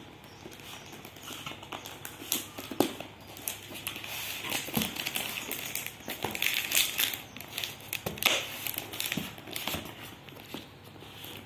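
Cardboard tablet box and its plastic packaging being handled: rustling and scraping with scattered taps and clicks, and a sharper knock about three seconds in and another about eight seconds in.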